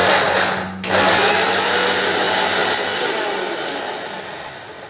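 Electric mixer-grinder running, grinding green chilli chutney: a short burst, a brief stop under a second in, then a longer run that slowly winds down near the end.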